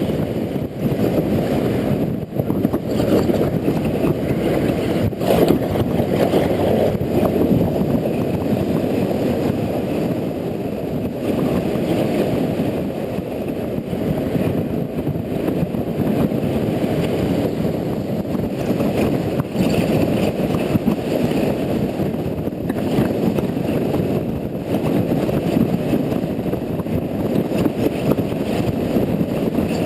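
Steady rumble of wind rush and road noise from a Honda Integra NC750D motorcycle riding on wet roads, heavy wind noise on the camera's microphone, with a fainter hiss above it.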